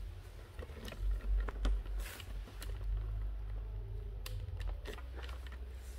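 Handling noise: a few irregular light clicks and knocks over a steady low hum.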